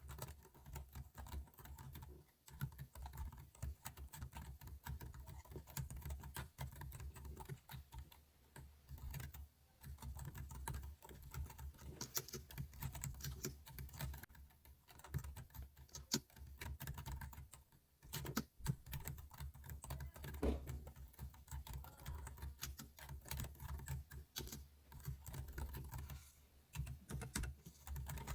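Computer keyboard typing: quick, uneven runs of key clicks with a few short pauses.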